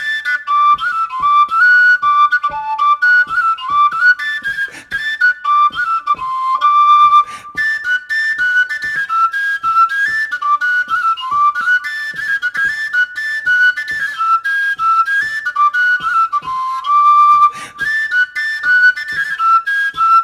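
Willow flute, a D overtone flute without finger holes, playing a polska melody in quick notes that step up and down through its overtone scale.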